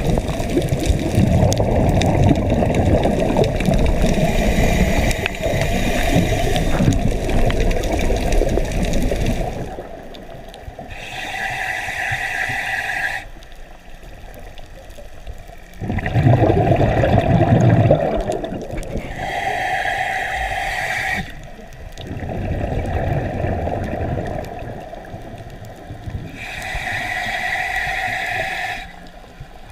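Scuba diver breathing underwater through a regulator: long bubbling exhalations alternate with three shorter hissing inhalations that carry a steady tone.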